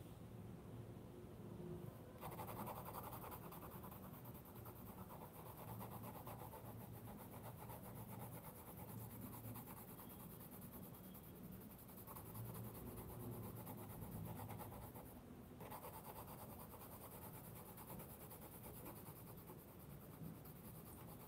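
Navneet Youva coloured pencil shading across thick Brustro sketchbook paper: a faint, steady scratchy rasp of the pencil lead. It starts about two seconds in and pauses briefly around fifteen seconds.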